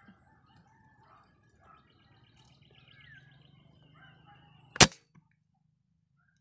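Small birds chirping faintly, then a single sharp shot from a scoped rifle about three-quarters of the way in.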